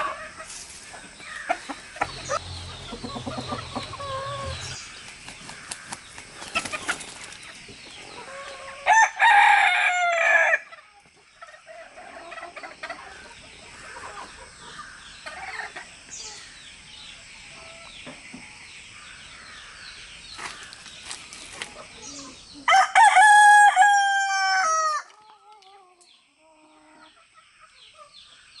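Roosters crowing: two long, loud cock-a-doodle-doo crows, one about a third of the way in and another about three-quarters through, with hens clucking and calling more quietly in between.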